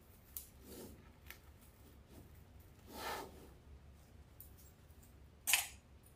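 Faint handling of craft materials: a small click, two soft rustles, and a short sharp scrape or rustle about five and a half seconds in.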